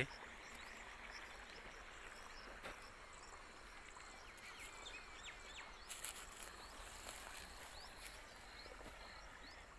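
Faint open-field ambience: a quiet hiss with scattered short, high chirps, and a few brief crackles about six seconds in.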